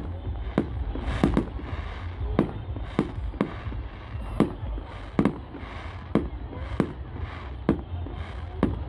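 Fireworks display: an irregular string of sharp bangs from exploding aerial shells, about two a second, over a steady low rumble.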